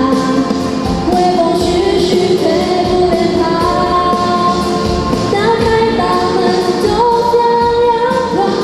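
A song: a female voice singing a melody of long held notes over instrumental backing with a steady beat.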